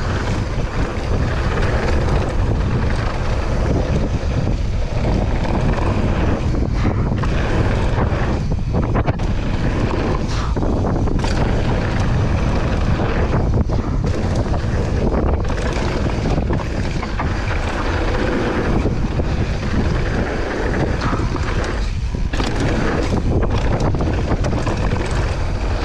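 A mountain bike at speed on a dirt downhill trail, with wind rushing over the microphone and the tyres and frame rattling.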